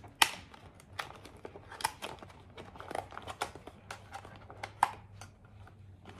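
Clear plastic takeout container being handled and opened, giving irregular crackles and clicks of the plastic, the loudest just after the start.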